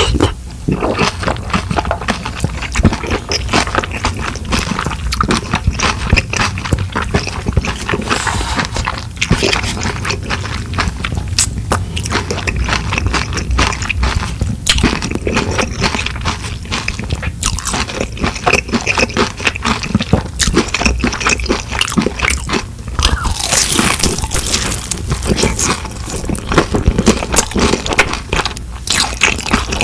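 Close-miked eating: continuous chewing and biting with crunchy, wet mouth sounds and many small clicks, as from noodles tossed with shredded cucumber kimchi.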